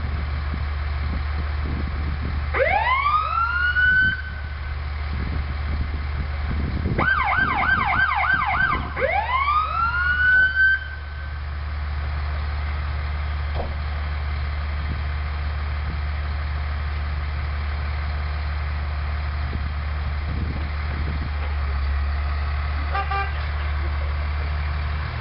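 Fire truck siren blipped in short bursts: a rising wail about three seconds in, a fast yelp of about six quick cycles around seven seconds in, then a second rising wail that cuts off abruptly near eleven seconds. A steady low rumble runs underneath.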